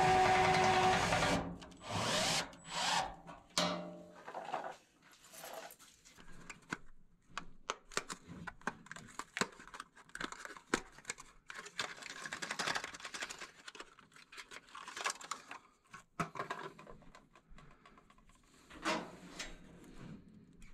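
A cordless drill-driver runs briefly, driving a screw into the furnace's sheet-metal blower housing, and stops a little over a second in. Then come scattered clicks, taps and light rustling as a run capacitor is handled and taken out of its box.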